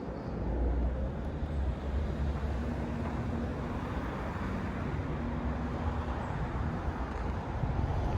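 Steady low rumble of street traffic, with a faint engine hum in the middle.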